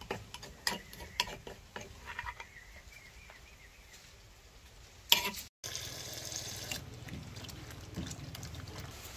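A metal spoon clinking and scraping against a ceramic plate as a salad is stirred, in sharp separate clicks. After a cut about five and a half seconds in, hands swish vegetables in water in a stainless-steel bowl, a steady splashing hiss.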